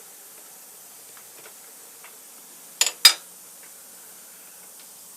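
Two sharp metal-on-metal clinks about a quarter second apart, roughly halfway through, with a short high ring, over a faint steady hiss: a hand tool or machine part knocking against metal during disassembly.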